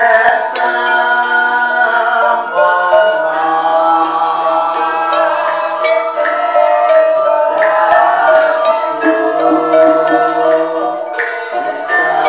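Javanese gamelan ensemble playing a gendhing: bronze keyed metallophones and gong-chime kettles ringing note after note in a steady, layered melody, with occasional sharp drum strokes.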